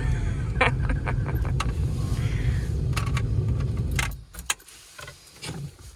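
An old vehicle's engine running with rattles and clicks, then cutting out suddenly about four seconds in: the engine stalls.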